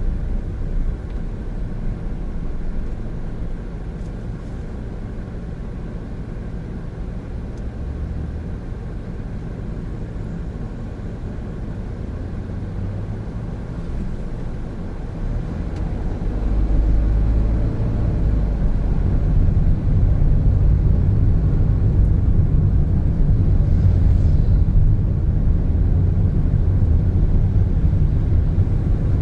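Cabin noise of a 2017 Honda N-BOX Custom on the move, its 660cc turbo engine and tyres making a steady low rumble. The rumble grows louder a little past halfway through and stays up.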